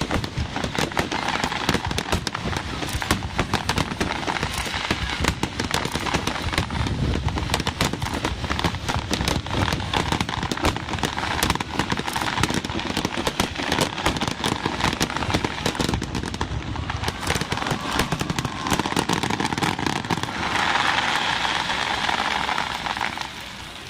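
Fireworks display: a dense, continuous run of overlapping bangs and crackles from aerial shells. Near the end a steadier hiss-like stretch rises over them for a few seconds, then the sound drops off.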